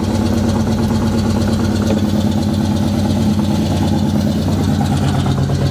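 1965 GMC 2500 pickup's engine idling steadily, freshly started and still cold, its water temperature under 100 degrees as it warms up.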